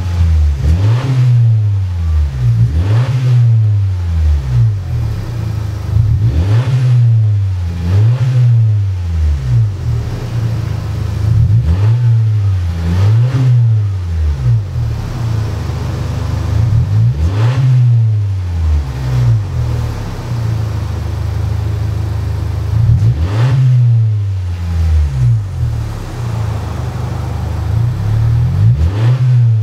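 2017 Honda Civic exhaust through aftermarket Carven TR mufflers with burnt tips, the engine revved in short blips again and again, each rising and falling in pitch. A stretch of steadier running comes in the middle.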